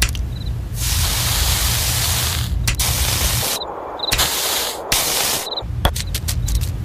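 A harsh hissing noise that comes in several long stretches with short breaks, over a low rumble.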